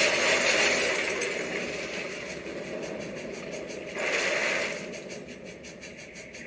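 Film sound effects of a runaway steam locomotive: a loud hissing rush that fades away, a second shorter rush about four seconds in, then a fainter fast, even pulsing.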